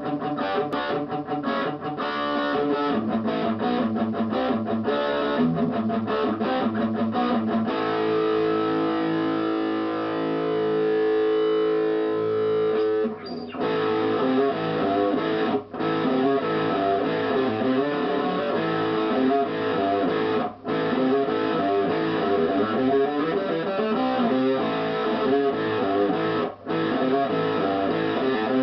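HK Wolf superstrat electric guitar played plugged in. Quick picked notes come first, then notes held ringing for several seconds near the middle, then continuous riffing broken by a few short pauses.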